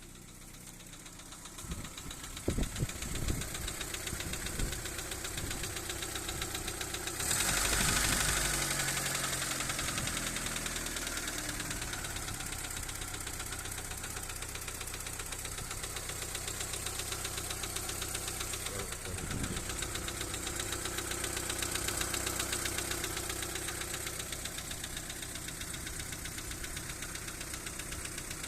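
Daewoo Nexia 1.5 engine running with a clattering tap ("цокотит"), not its normal sound: a knock that new hydraulic lifters did not cure. The engine speed rises sharply about a quarter of the way in and slowly settles back.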